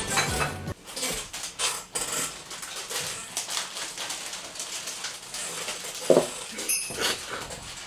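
Ice cubes clinking in a glass of water as it is picked up and handled, among light clinks of dishes and tableware on the table.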